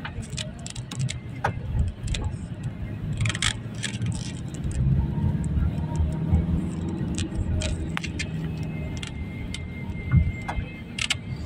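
A motor vehicle running with a steady low rumble, with frequent light clicks and rattles over it.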